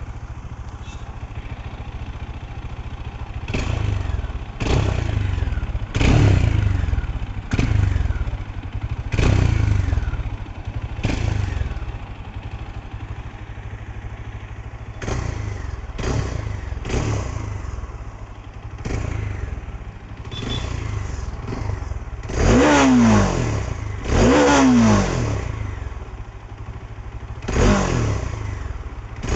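Bajaj Dominar 400's single-cylinder engine on its stock exhaust, revved while standing in neutral: it idles between a string of short throttle blips, then gets a few longer revs that rise and fall in pitch.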